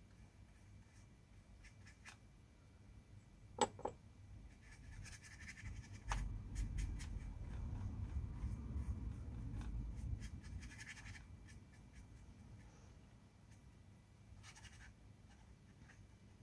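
Faint scratchy brushing of a paintbrush on rough watercolour paper, in short spells. Two sharp clicks come about three and a half seconds in, and a low rumble runs through the middle.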